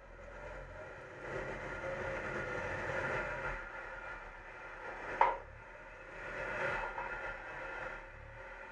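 Front-loader garbage truck's diesel engine and hydraulics running steadily, with one sharp knock about five seconds in.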